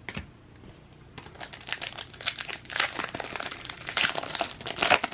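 Plastic wrapper of a basketball trading card pack crinkling as it is torn open and handled. The crackling gets busier after about a second and is loudest near the end.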